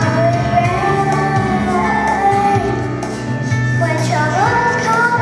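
Young children singing a song into microphones over a musical accompaniment.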